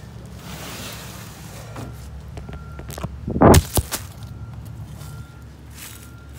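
Rustling handling noise on a phone's microphone, with one heavy thud about three and a half seconds in and a sharp knock right after it.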